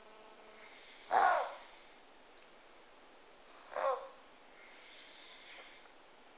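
Pug reverse sneezing: two loud, sharp, rasping gasps drawn in, about a second in and just before four seconds, then a softer, longer breath around five seconds in. Reverse sneezing is a spasm of the throat and soft palate with forceful pulls of air through the nose, common in flat-faced breeds such as pugs.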